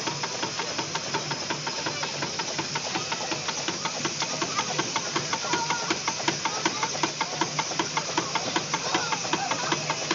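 Steam traction engine running idle just after starting, its exhaust chuffs and running gear clattering in a fast, even beat over a steady hiss of steam.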